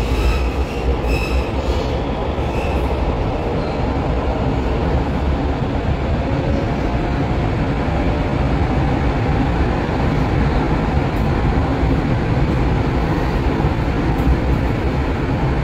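Cologne Stadtbahn railcar running, heard from inside the passenger cabin: a steady loud rumble of wheels and running gear. A few brief high-pitched tones come in the first couple of seconds.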